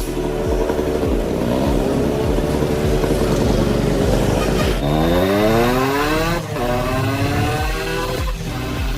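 Yamaha RX100 two-stroke single-cylinder engine revving. Its pitch rises about a second in and holds, then climbs steeply near five seconds, drops briefly and climbs again a second and a half later.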